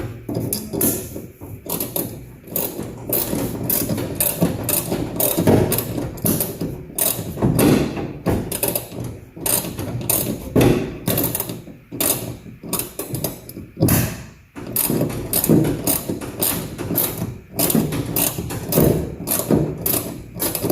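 Hand ratchet wrench clicking in quick repeated strokes as a bolt on the truck door is tightened down.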